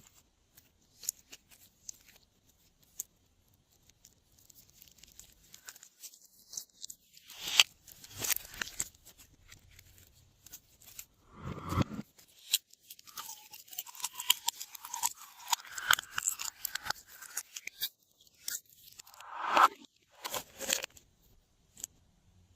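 Glossy slime being mixed and squeezed by hand, making irregular crackling clicks, small pops and crunchy squishes. The sound is sparse at first and comes in louder bursts through the second half.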